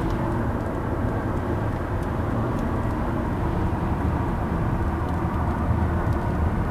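Steady low rumble of a car driving: road and engine noise, even throughout.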